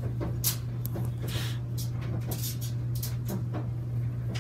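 Scattered clicks, knocks and rustling as boxes and bottles on a wire laundry shelf are handled and moved, over a steady low hum.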